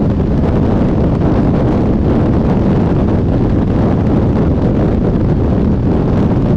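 Steady wind noise on the microphone of a BMW R 1200 GS motorcycle cruising at highway speed, with low road and engine noise underneath.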